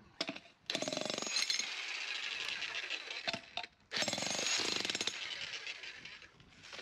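Electric demolition breaker hammering its chisel into brickwork and mortar in two bursts of rapid blows, the first starting just under a second in and the second after a brief pause near the middle, stopping shortly before the end.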